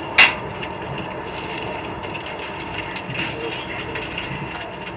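Inside a passenger train carriage: a steady running rumble with faint clicks, and one sharp, loud clank just after the start.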